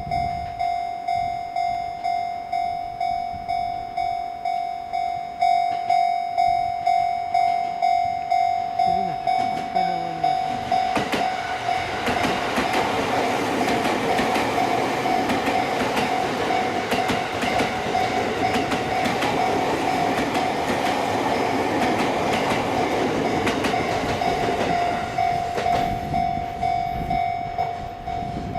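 Japanese level-crossing warning bell ringing in a steady, repeating pulse. About ten seconds in, a Sotetsu electric train passes over the crossing, its wheels running over the rails drowning the bell for about a quarter of a minute. The bell is heard clearly again near the end.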